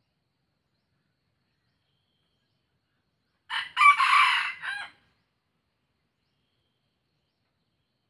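A red junglefowl-cross rooster crowing once, a short crow of about a second and a half that starts with a brief first note and runs into a longer phrase that cuts off.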